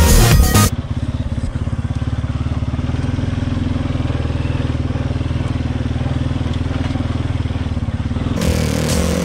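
ATV engine running steadily while the four-wheeler rides through grass, with a fast, even low pulse. Electronic music plays for the first moment and comes back near the end.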